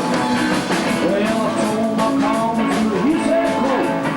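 Rockabilly band playing a rock and roll number, with notes sliding up and down in pitch in the middle.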